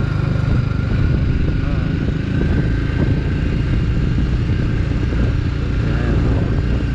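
BMW G 310 GS single-cylinder motorcycle running steadily on the move, with wind rush on the microphone.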